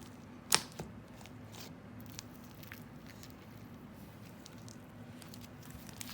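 Homemade slime packed with foam beads and packing peanuts being squished and worked by hand: one sharp pop about half a second in, a smaller one just after, then faint scattered crackles and pops.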